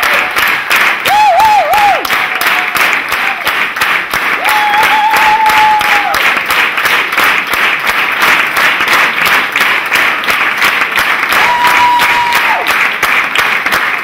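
Theatre audience applauding in steady rhythmic unison clapping during the curtain call. Three brief whistles rise above the clapping.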